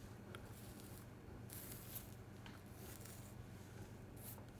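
Faint scratching and rubbing of fingers on the face, a few short strokes with a longer one about a second and a half in, over a low steady hum.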